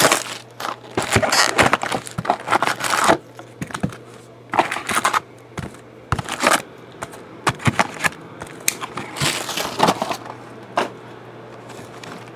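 Plastic shrink wrap crinkling and tearing as it is stripped off a trading card box, in dense irregular crackles for the first few seconds. After that come scattered rustles and taps as the cardboard box is opened and foil card packs are handled.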